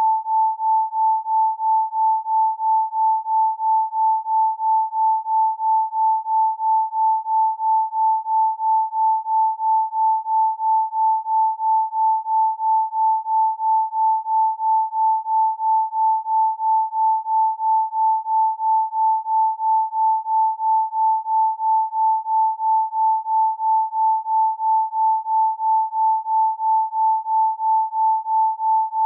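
An isochronic tone: a single pure, steady tone pulsing on and off at an even rate of about two to three beats a second.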